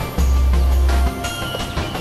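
Tense background score: a deep bass note held for about a second near the start, with short high notes scattered above it.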